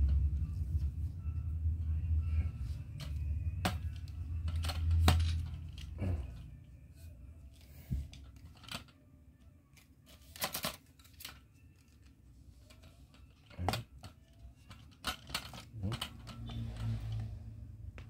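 Metal tripod being handled and its leg sections pulled out: irregular sharp clicks and knocks of the tubes and leg locks. A low rumble of handling noise runs through about the first six seconds.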